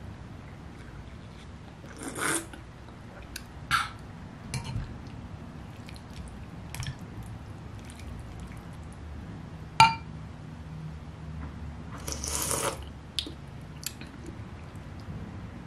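Eating sounds at a table: a metal spoon stirring and scooping stew in a ceramic pot, with soft clicks and one sharp ringing clink about ten seconds in. Two short bursts of noise come about two seconds and twelve seconds in.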